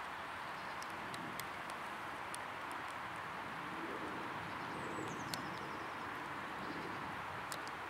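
Outdoor ambience: a steady background hiss, with a small songbird's short descending trill about halfway through and a few faint scattered ticks.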